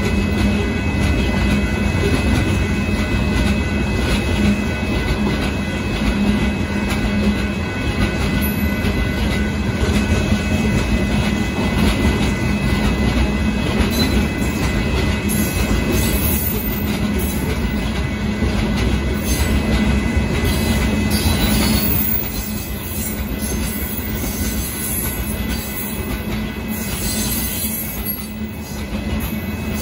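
Loaded rock hopper cars of a Union Pacific freight train rolling past, a steady rumble and clatter of wheels on the rails. A faint steady high tone rides over it and fades out about 22 seconds in, where the train also gets a little quieter.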